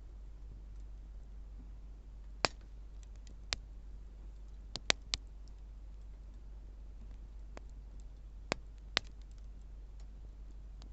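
Wood bonfire crackling: about eight sharp, irregular pops and snaps of burning wood, three of them close together about five seconds in, over a steady low rumble.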